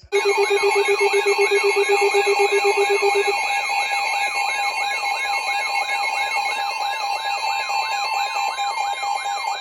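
Several electronic weather-alert alarms sounding together, signalling an incoming severe thunderstorm warning. A fast-pulsing low beep stops about three seconds in; under and after it run a siren-like whoop repeating about three times a second, a wavering high tone and steady high tones.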